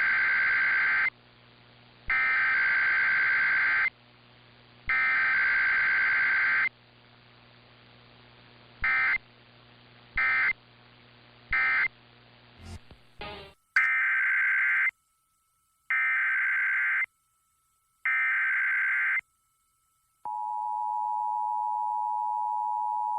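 Emergency Alert System SAME data bursts: three longer header bursts, then three short end-of-message bursts over a steady mains hum. After a cut, three more header bursts in a cleaner recording, then the EAS two-tone attention signal starting about 20 seconds in.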